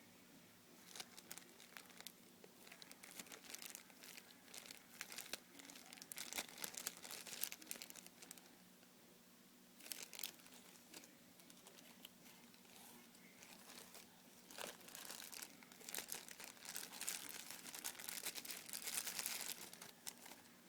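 Plastic packaging crinkling as a squishy toy in its bag is handled, in irregular crackly spells with short pauses between.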